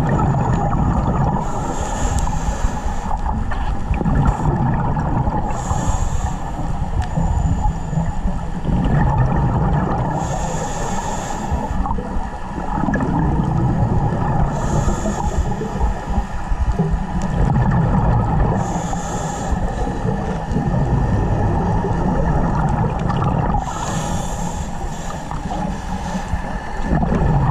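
Scuba diver breathing through a regulator, heard underwater through a GoPro housing: a hissing inhale about every four to five seconds, each followed by a low rumbling burst of exhaled bubbles.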